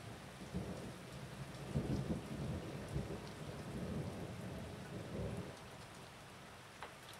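Thunder rumbling for about five seconds, loudest about two seconds in and fading out, over steady rain falling.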